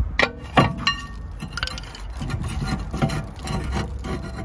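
Metal clanks and knocks as a stuck rear brake disc is worked loose and pulled off its hub. Three sharp clanks come in the first second, some ringing briefly, then rubbing and knocking as the disc shifts.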